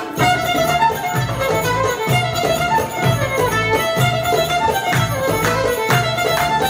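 Live acoustic belly-dance music: a violin plays the melody over mandolin, bass and dumbek, with a steady pulse of bass notes.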